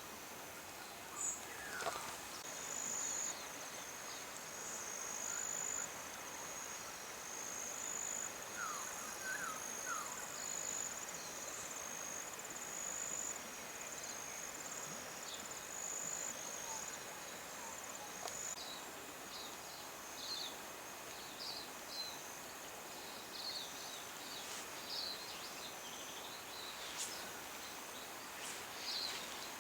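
Outdoor ambience: a steady high-pitched insect trill that stops about two-thirds of the way through, with short bird chirps scattered through the later part over a soft, even hiss.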